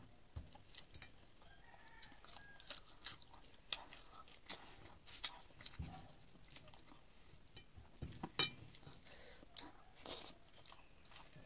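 Close-up eating sounds: chewing and small mouth noises as rice and fish curry are eaten by hand, with fingers working the food on the plate. Scattered soft clicks run through it, with one sharper click a little past eight seconds in.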